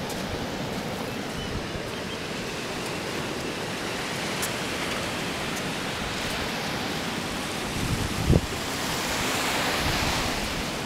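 Small waves breaking and washing up a sandy beach, a steady rush that swells near the end, with wind buffeting the microphone. A single brief low thump about eight seconds in.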